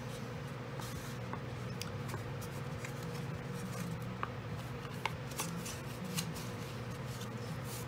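Scored cardstock being folded and handled by hand: soft paper rustling with a few faint crackles and ticks, over a steady low hum.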